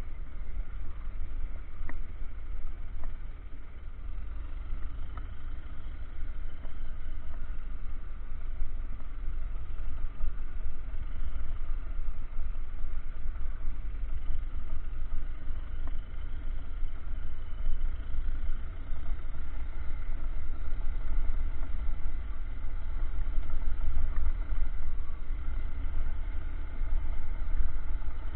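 A vehicle being driven off-road, heard through an action camera's microphone: a steady low rumble of engine and movement that rises and falls unevenly, with a few small knocks.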